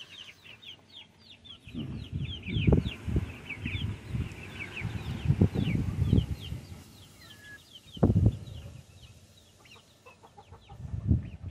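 Young Polish, Silkie and Cochin chicks peeping: many short, high, downward-sliding peeps, dense at first and thinning out after about eight seconds. Low rumbles and thuds, louder than the peeps, come and go under them.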